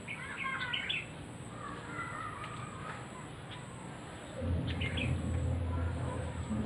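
Wild birds in a garden tree giving short, scratchy chirping calls in several bursts, over a steady high-pitched buzz. About four seconds in, a low steady hum starts up beneath them and carries on.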